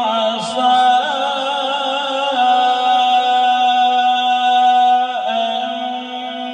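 A man reciting the Quran in a melodic, drawn-out style. His voice winds through ornamented, wavering runs, then holds one long steady note from about two and a half seconds in to about five seconds, with a short break just after it.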